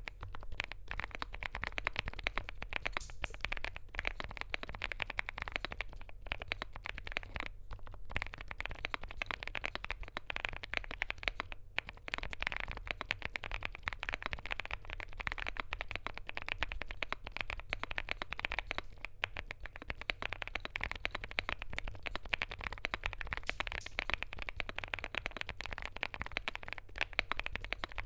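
Steady, fast typing on a Knife Join65 mechanical keyboard with lubed, filmed Gazzew Boba U4T tactile switches in an FR4 plate under PBT keycaps: a dense run of keystroke clacks with a few brief pauses.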